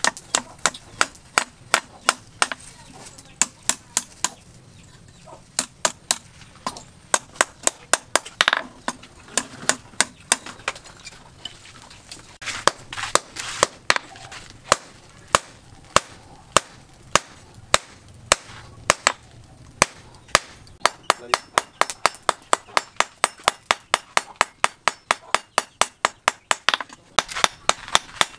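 Hand hammer striking red-hot steel on a small iron stake anvil, forging a hook prong: sharp metallic blows in a steady rhythm of about two a second, coming faster from about twenty seconds in.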